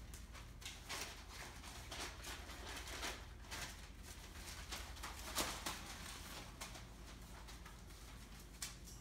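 Entlebucher puppies scuffling about: irregular light clicks and scratches, a little louder about five seconds in, over a faint low steady hum.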